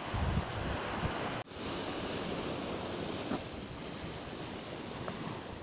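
Wind buffeting the microphone on a beach. After a cut about a second and a half in, small waves breaking on a sandy shore, with wind noise.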